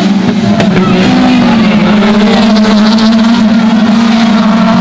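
Autocross cars' small engines held at high revs as they race around a dirt track, a loud, steady drone with little rise or fall.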